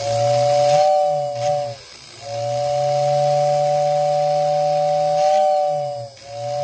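Postwar Lionel 2466WX tender's motor-driven whistle blowing a steady two-tone note, with the shell off. It is blown three times: a blast of about two seconds, one of about four seconds, then another starting near the end. Each blast sags slightly in pitch as it cuts off.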